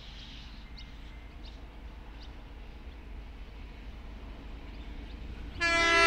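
XPT passenger train approaching with a low rumble while birds chirp faintly, then its horn sounds one loud, short blast near the end.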